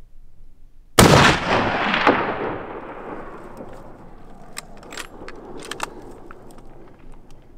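A single hunting-rifle shot about a second in, sharp and loud, its report rolling and fading over about two seconds. A few light clicks and clatters follow.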